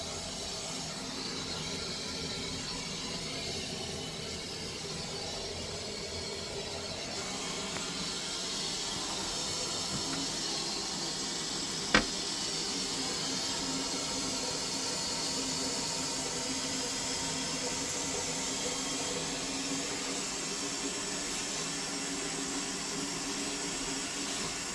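Toilet cistern refilling after a flush: a steady hiss of water running in through the inlet valve of a Twyford Classic 6-litre low-level cistern. A single sharp click about halfway.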